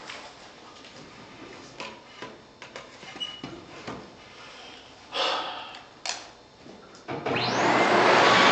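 A backpack vacuum cleaner switches on about seven seconds in: its motor spins up with a quickly rising whine into a steady loud rush. Before that come light knocks and clicks from the hose and wand being handled, with two louder thumps about five and six seconds in.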